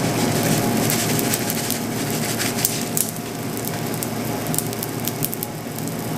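Pop Rocks popping candy crackling on the icing of a candy pizza: a dense, steady run of tiny pops and clicks over a low hum.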